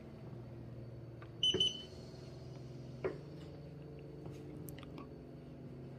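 A massage chair's control gives one short electronic beep as the power button is held down, over a steady low hum. A small click comes about halfway through.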